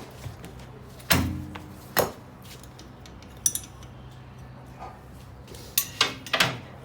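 Metal hand tools clinking and clanking against each other and the brake parts: about six sharp, separate knocks, several bunched together near the end, over a steady low hum.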